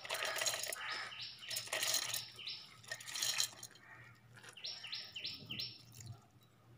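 A small bird chirping in short sweeping notes, with a quick run of four notes a little before the end. Under it, soft rustling and clicking of soaked mung beans scooped by hand into a steel mixer jar, mostly in the first half.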